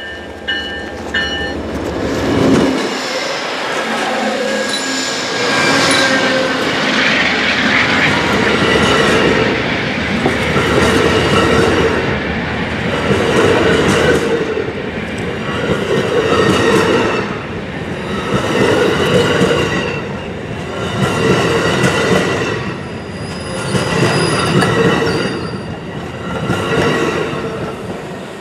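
Amtrak passenger train passing close by: a GE Genesis P42 locomotive goes by first, then double-deck Superliner cars. The cars rumble, with wheel clicks over the rail joints in a rhythm of roughly one pulse every two and a half seconds and some high wheel squeal.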